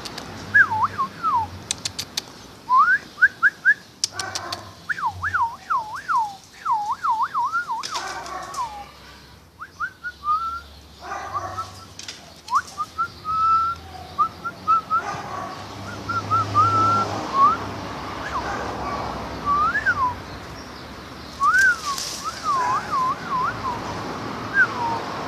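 Someone whistling in quick rising and falling swoops, in runs with short breaks, with a few brief clicks of handling noise.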